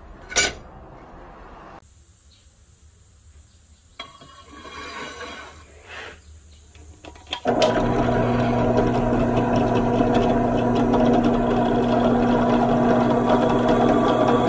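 Drill press running, its twist bit drilling a hole through the steel of a knife blank cut from an old saw blade: a loud, steady machine sound with a low hum that starts abruptly about halfway through. Before it, a sharp click and faint handling sounds.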